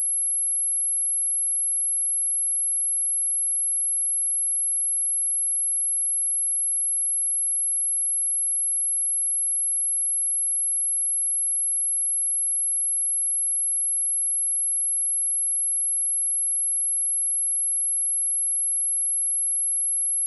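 A steady, high-pitched 11076 Hz sine-wave test tone, one pure pitch held without change, as used for testing speakers and clearing water and dust from them.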